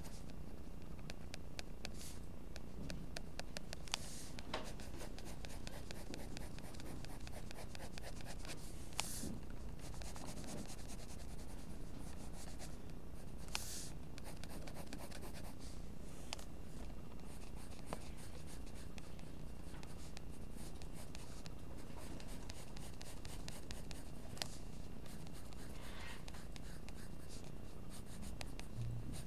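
Mechanical pencil graphite scratching and rubbing across paper in many quick, short shading strokes, with a few louder strokes now and then.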